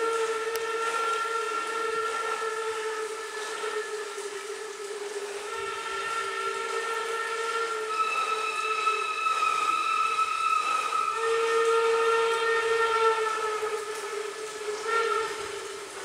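Steam locomotive whistle of the Tren de la Araucanía blowing one long, sustained chord of several notes, the mix of notes shifting about halfway through.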